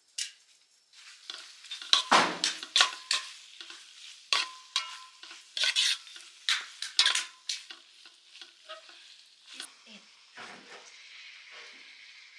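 Metal spoon scraping and knocking against a metal pan while stirring food frying in oil, with a sizzle under the strokes. The strokes thin out after about eight seconds, leaving mostly a steady faint sizzle with an occasional light knock.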